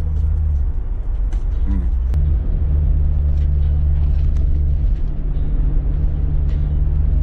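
Road and engine noise inside the cabin of a moving car: a steady low drone.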